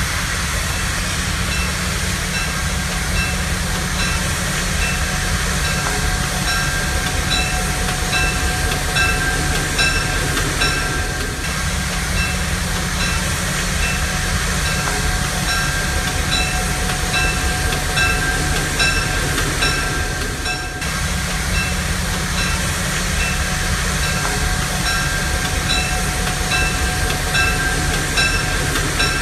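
Train running: a steady low rumble with a regular clicking of wheels on the rails, about every two-thirds of a second, and a thin steady whine above it.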